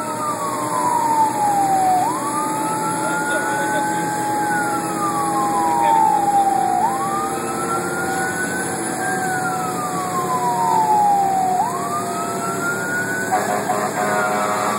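Fire engine's siren wailing, heard from inside the cab: its pitch sweeps up quickly and then falls slowly, about every four and a half seconds. A second, steadier tone falls slowly underneath, over the low hum of the engine running.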